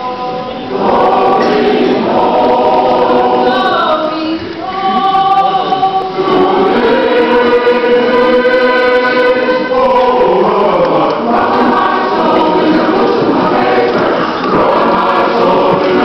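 Many voices singing a hymn together, holding long notes, with one long sustained note in the middle.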